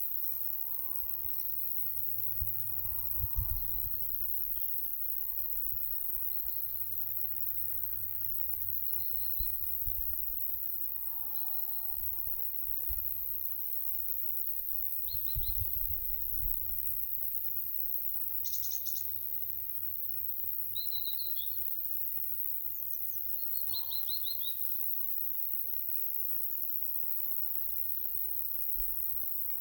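Scattered short bird chirps and calls, several small songbirds sounding now and then, over a steady high hiss. Light summer wind buffets the microphone in a few low rumbles, the strongest about 3 s and 15 s in.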